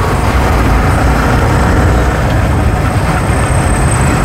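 Yamaha R15 V3 motorcycle under way: a steady, loud rush of wind on the microphone over engine and road noise.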